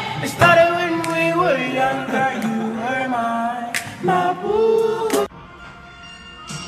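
Music with singing, long held sung notes that cut off suddenly about five seconds in, leaving quieter music.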